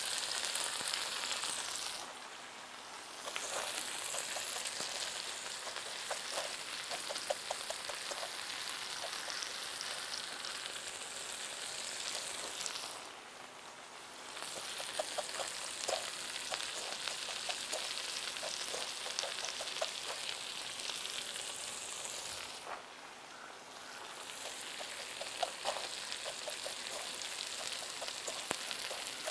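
Breaded fish fillets, hush puppies and sliced potatoes with onion sizzling in oil on a hot flat-top griddle: a steady hiss with scattered small pops. The sizzle drops away briefly three times.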